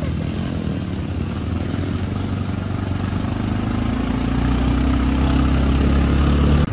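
ATV (quad bike) engine running, then rising in pitch and getting louder from about two-thirds in as it accelerates; the sound cuts off abruptly at the end.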